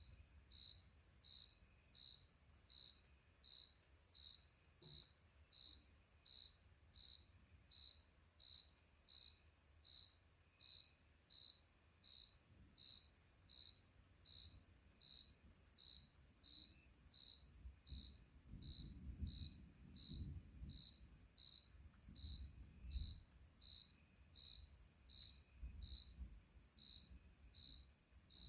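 A cricket chirping steadily, short high chirps repeating a little more than once a second, faint. Low rumbling swells come in during the second half.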